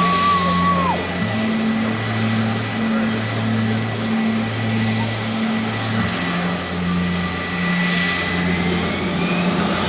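Blue Angels F/A-18 Super Hornet jet engines running at ground idle as the jets taxi: a steady high whine over a low wavering hum. Near the end one whine rises in pitch as an engine spools up. A short beep-like tone lasts about a second at the start.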